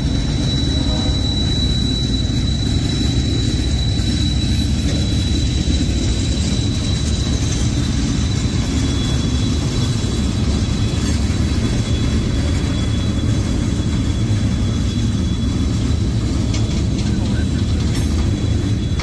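Freight train cars rolling past: a steady low rumble of steel wheels on the rails and joints, with a thin steady high-pitched tone running over it.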